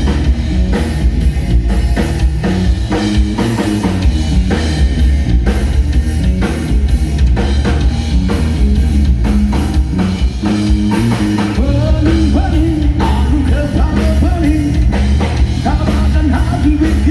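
Rock band playing live: drum kit, electric guitar and bass, with a male singer's voice joining about two-thirds of the way through.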